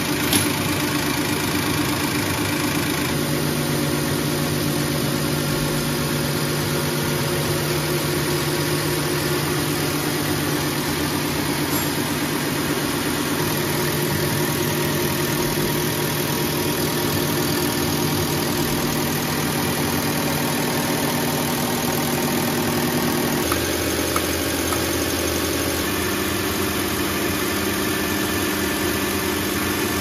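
Diesel injection-pump test bench running, driving a first-series Bosch VA rotary injection pump under calibration as a steady mechanical hum. The pitch of the hum changes at about 3 seconds and again at about 23 seconds as the bench steps to a new test speed.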